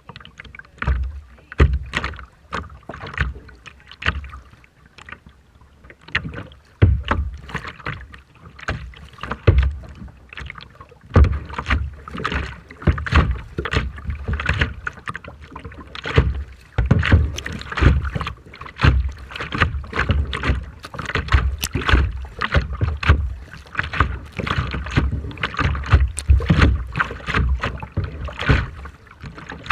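Rough, choppy sea water splashing and slapping in quick, irregular knocks, with strong wind buffeting the microphone in low thumps.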